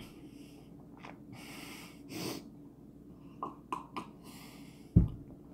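Hard, hissing breaths through the mouth from the burn of a Carolina Reaper and habanero hot sauce, several in a row. About three and a half seconds in come a few short clicks while drinking milk, and about five seconds in a single low thump, the loudest sound.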